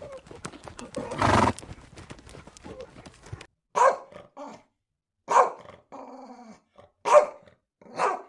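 Rapid clicking and tapping, with a short loud rushing burst about a second in. Then the background drops away and a puppy gives four short, sharp yips, with a brief whine between the second and third.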